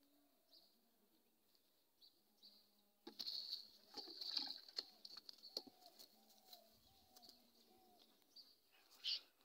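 A freshly landed fish flapping and thrashing on grass, a rapid run of slaps and rustles starting about three seconds in and dying down to occasional flicks.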